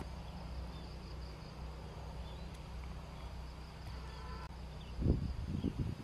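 Outdoor ambience with insects droning steadily in the vegetation and a low background rumble. A few louder, muffled low thumps come near the end.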